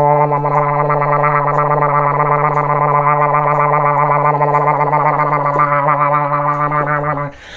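A man making a sustained low buzzing drone with his mouth, fingers held at his lips, its pitch steady and its upper tones wavering, like a didgeridoo. It stops abruptly about seven seconds in.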